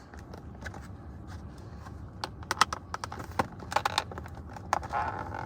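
Packaging being opened by hand: a run of irregular clicks and crackles, sparse at first and busier from about two seconds in.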